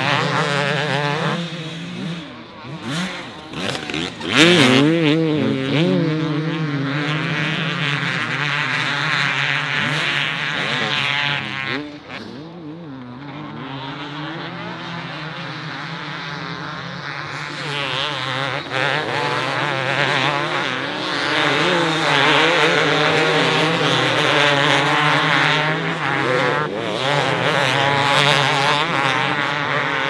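Several two-stroke motocross bikes racing, their engines revving up and down as they go round the track, overlapping one another. The loudest pass comes about four seconds in, and the sound dips briefly about twelve seconds in before the bikes build again.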